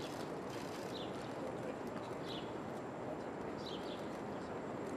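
Outdoor ambience: a bird giving short, high, falling chirps every second or so over a steady background hiss, with a few faint clicks about half a second in.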